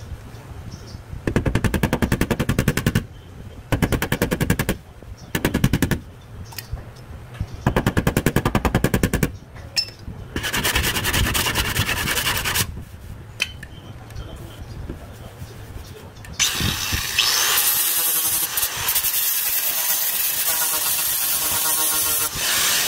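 Several bursts of very rapid hammer blows on the steel wheel arch of a car's rear body panel, knocking a raised edge back down. About sixteen seconds in, an angle grinder starts and runs steadily, grinding the metal.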